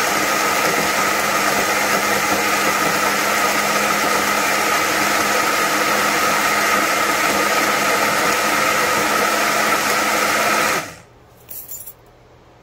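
Boly 300 W single-serve personal blender running steadily at full speed while blending a fruit smoothie, held on by its push button. It cuts off suddenly about eleven seconds in when the button is released.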